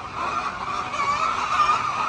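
Poultry flock calling together, a continuous chorus of overlapping clucks and squawks.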